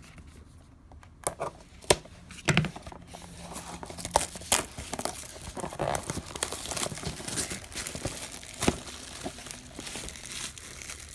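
Packaging of a sealed box being torn open and crumpled: a few sharp snaps and rips, then steady crinkling from about four seconds in.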